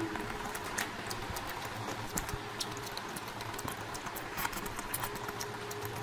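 Close-miked eating sounds: irregular small wet clicks and smacks of chewing a mouthful of curry, over a faint steady hum.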